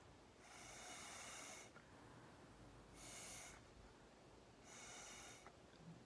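Three puffs of breath blown through a thin drinking straw, each a short airy hiss, the first about a second long and the next two shorter. The puffs are blowing wet watercolor paint across paper.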